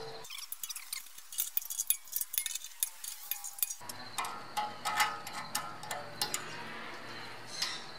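Ratchet wrench clicking in quick, irregular runs as a nut is tightened on an anchor bolt.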